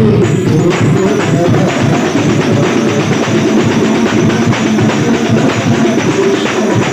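Rebana frame drums of a hadroh ensemble played with fast, dense hand strokes, a rapid unbroken drumming pattern.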